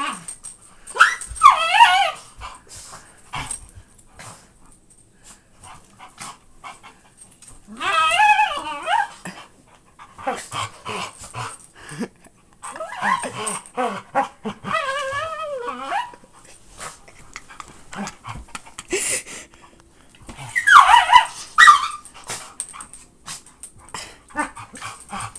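Dogs play-fighting, a chocolate Labrador and a miniature pinscher: repeated bursts of high, wavering whining growls, each a second or two long, with soft clicks and knocks between.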